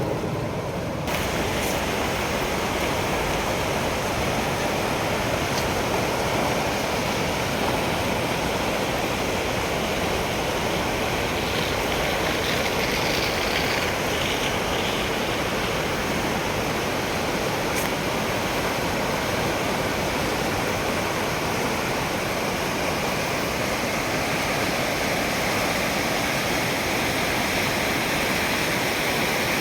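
Steady rush of falling or fast-flowing water, an even noise with no distinct splashes. It fills out and gets a little louder about a second in.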